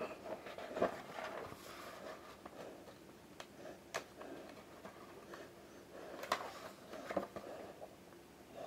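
Faint handling noises of a graphic novel: soft rustling with a few light clicks and taps as the book is held and its pages turned.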